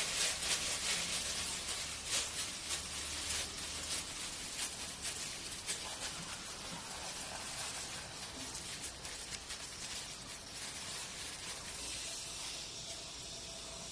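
Food sizzling in hot oil in a pan, a steady hiss with small crackles that slowly dies down.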